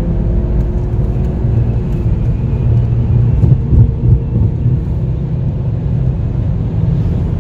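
Steady low engine and road rumble heard inside the cabin of a 2015 Volvo V40 T4 R-Design driving at speed, with its turbocharged four-cylinder engine under way. Two short louder thumps come about three and a half seconds in.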